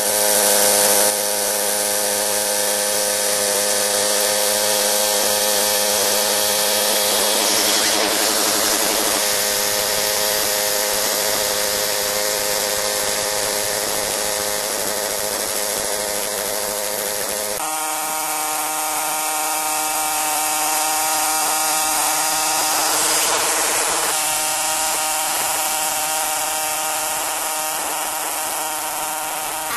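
Old tiller's small gasoline engine, converted to run on propane, running steadily under load as its tines dig through turf. The engine note shifts abruptly about two-thirds of the way through.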